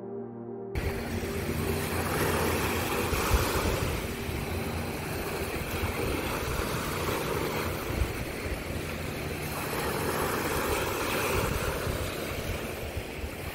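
Surf washing onto a sandy beach, with wind rumbling on the microphone; it starts about a second in, as the music stops.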